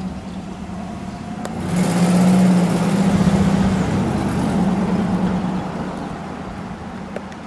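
1959 Pontiac Bonneville with its Tri-Power 389 V8 driving by at low speed: a steady engine note that grows louder as the car passes, about two seconds in, then fades as it moves away.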